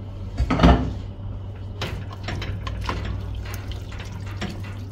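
Carrot-cooking water with diced carrots poured into a pot of tuna stew, splashing and trickling. The loudest pour comes just under a second in, followed by scattered smaller splashes.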